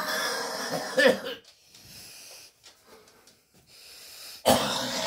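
A man coughing hard in two bouts. The first lasts about a second and a half at the start, and the second begins about four and a half seconds in, with quieter breathing between.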